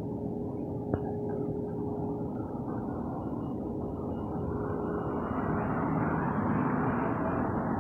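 A car driving past on the street, its tyre and engine noise swelling over the last few seconds, over a steady low rumble with a faint steady hum.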